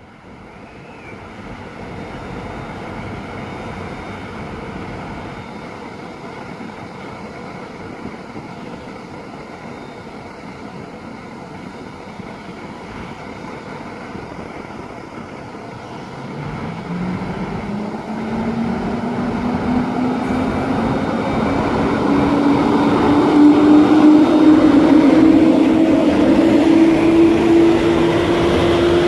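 EP07P electric locomotive standing with a steady running hum, then pulling its train away: from about sixteen seconds in, a whine rises steadily in pitch and grows louder as the train gathers speed and the carriages roll past.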